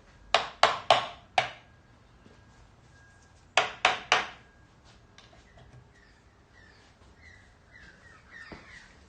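A crow cawing: four harsh caws in quick succession, then three more about two seconds later. Small birds chirp faintly in the second half.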